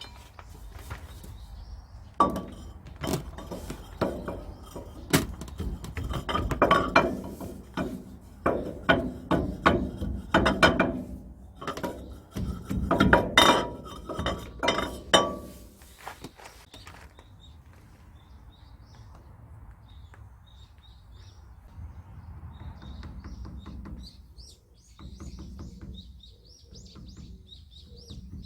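Irregular hammer blows and metal clanks on steel truck suspension parts, loud and frequent for about the first half. After that it goes quieter, with faint bird chirps.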